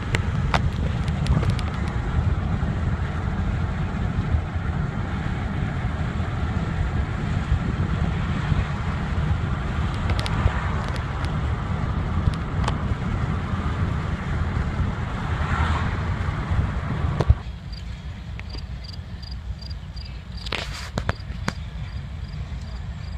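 Road and engine rumble heard from inside a moving car, which cuts off abruptly about 17 seconds in. It gives way to quieter outdoor air with a faint high ticking about twice a second.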